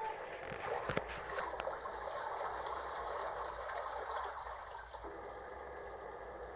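Water running and splashing steadily, with a sharp click about a second in; slightly quieter after about five seconds.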